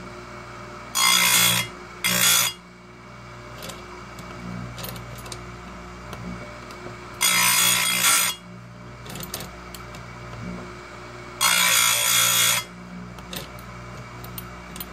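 Oregon 410-120 bench chain grinder's wheel running with a steady hum, and four short, loud grinds of about a second each as the spinning wheel is lowered onto the steel cutters of a chainsaw chain. Two come close together about a second in, one about halfway through, and one near the end.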